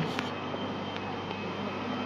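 Steady outdoor machinery hum, with a faint click just after the start.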